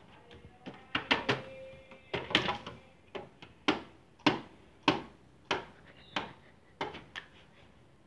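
A hand knocking and slapping on a hard surface, a series of sharp knocks that settle into a steady beat of about one every half second in the second half.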